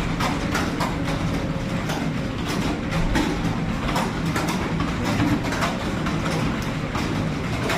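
Computer keyboard keys being typed on fast and without pause, a dense, steady clatter of keystrokes during a typing speed test.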